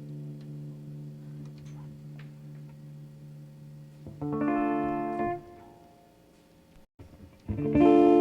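Electric guitar through a soundboard feed: a held note fades out, a chord is struck about four seconds in and rings away, then after a brief dropout louder picked notes start near the end.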